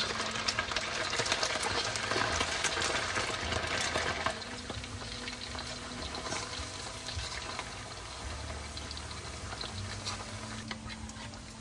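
Marinated beef slices deep-frying in oil heated to about 375°F: a dense bubbling crackle, louder for the first four seconds or so, then settling to a softer, steady sizzle.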